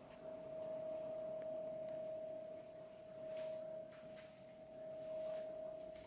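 Samsung RT35FEAJDSL inverter frost-free refrigerator giving off a strange whine: one steady tone that swells and fades every couple of seconds, with a few faint clicks. The owner cannot tell whether the noise is normal or a fault.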